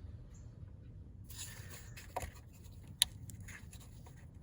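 Small handling noises of the Smart Fortwo's plastic electric changeover valve and its hoses being worked loose by hand: light scraping and a few soft clicks, with one sharp click about three seconds in, over a steady low rumble.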